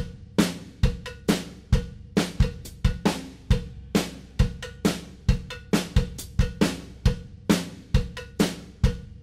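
Background music: a drum kit playing a steady beat on its own, about two to three hits a second.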